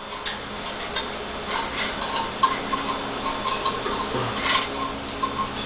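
Loose small metal rifle parts clinking and rattling against each other as they are picked through by hand, a series of irregular light clicks and clinks.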